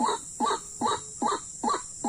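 White-breasted waterhen (ruak-ruak) calling, a rapid, very regular string of harsh 'ruak' notes, about five in two seconds, over a steady high hiss.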